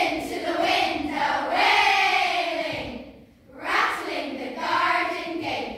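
Children's choir singing together in two phrases, with a short break a little after three seconds.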